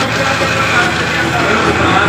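Loud, steady din of a garment factory floor: machines running, with music mixed in.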